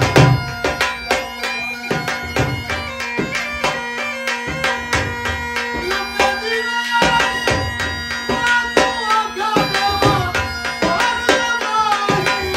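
Mashak (folk bagpipe) playing a folk melody over its steady drone, with a two-headed barrel drum (dhol) beating a regular rhythm beneath it.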